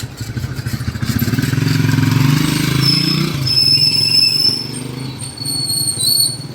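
A vehicle engine passing close by, growing louder about a second in and easing off after about four and a half seconds, with thin high whistling tones in the second half.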